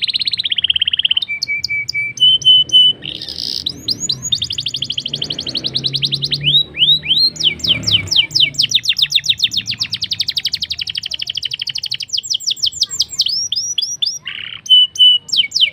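Black-throated canary (blackthroat) singing a long, unbroken song: fast trills of rapidly repeated sweeping notes mixed with short, steady whistled notes and fluid warbles.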